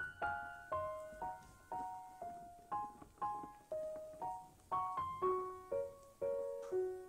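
Background piano music: a gentle melody of single struck notes, about two a second, each ringing and fading.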